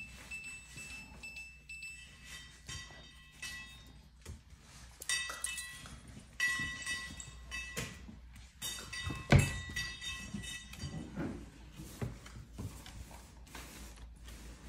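Dogs moving about on a tile floor: scattered clicks and knocks, with one loud knock about nine seconds in. Among them are several short ringing metallic tones, like small chimes, each dying away within about a second.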